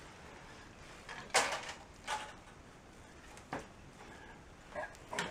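Handling noise from a Samsung LCD TV panel and its metal back chassis being tilted and flipped up on a quilted moving blanket: a few brief scrapes and knocks, the strongest about a second and a half in, a smaller one near two seconds and a light click around three and a half seconds.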